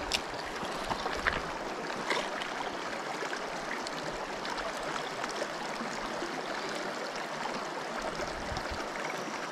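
Shallow creek water running steadily over rocks and small rapids, with a few light clicks in the first two seconds.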